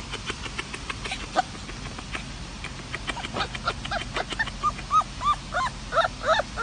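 Fluffy puppy yipping and whimpering: short, high cries that each rise and fall, starting about three seconds in and coming quicker toward the end. Before them comes a run of quick, sharp clicks.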